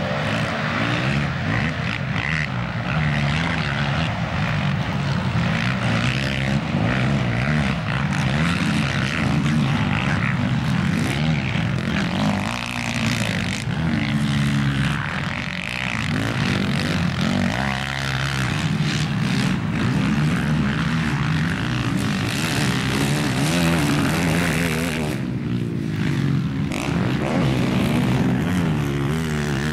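Several racing quad bikes' engines revving hard around a dirt track, the pitch rising and falling again and again as the riders work the throttle through corners, jumps and gear changes.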